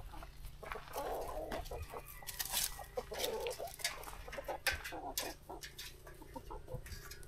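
Chickens clucking in short, scattered calls, with a faint steady low hum underneath.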